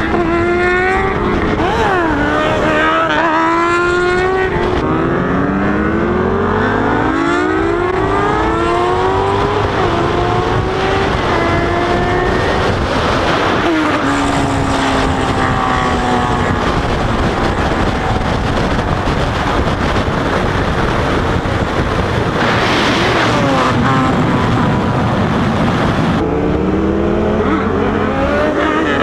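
Sport motorcycle engine accelerating and shifting up through the gears: its pitch climbs, drops back at each shift and climbs again. Constant wind rush runs underneath, swelling about three-quarters of the way through.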